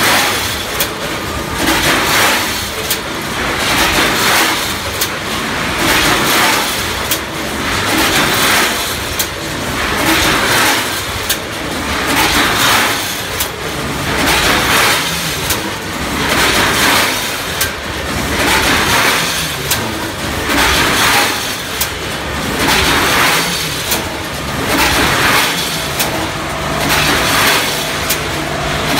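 Double-lane premade zipper doypack pouch packing machine running. It repeats a cycle of air hissing and sharp clicks about once a second as it feeds, opens and fills the pouches.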